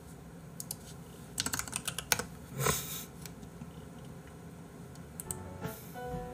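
Typing on a computer keyboard: quick runs of key clicks in the first three seconds, then a pause. Light plucked music comes in near the end.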